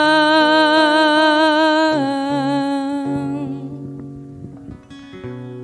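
A woman singing the closing note of a song, held long with vibrato, stepping down to a lower note about two seconds in and fading out, over acoustic guitar. The guitar's last notes ring on and die away after the voice stops.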